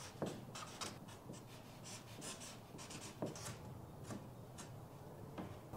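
Sharpie permanent marker writing on a plywood subfloor: a quick, faint run of short scratchy strokes as letters and numbers are written.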